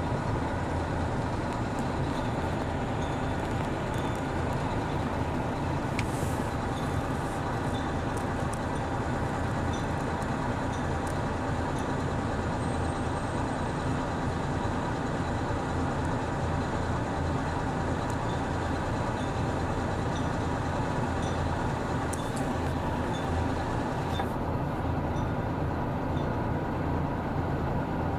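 Heavy earthmoving machine's diesel engine running steadily at working revs.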